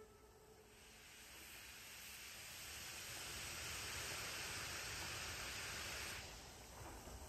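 Faint, steady hiss of steam from the 01 519 steam locomotive, swelling over the first few seconds and cutting off suddenly about six seconds in.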